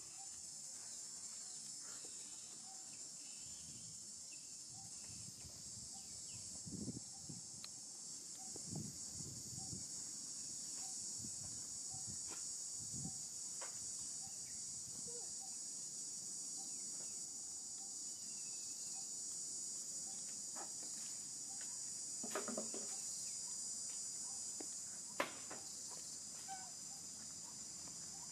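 Steady high-pitched chorus of insects, unbroken throughout. A few soft low thumps come between about seven and thirteen seconds in, and a couple of sharp clicks later on.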